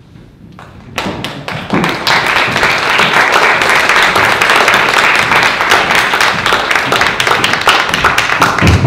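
Audience applauding, a dense clapping that starts about a second in and swells to full strength, with a low thump near the end.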